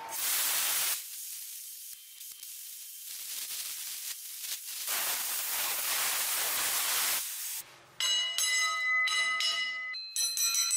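Plasma cutter hissing as its arc and air jet cut through rusty steel plate turning in a lathe, loud at the start and again for about four seconds in the middle. From about eight seconds in, steady high ringing tones that shift pitch every half second or so take over.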